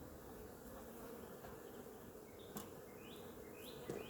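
Honeybees buzzing around an open hive: a faint, steady hum. A bird chirps a few times in the second half.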